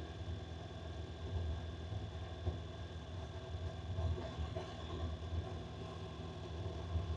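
A Honda NC750X motorcycle's parallel-twin engine running under way, mixed with steady low wind rumble. The rumble wavers without pause, with a few brief bumps in level.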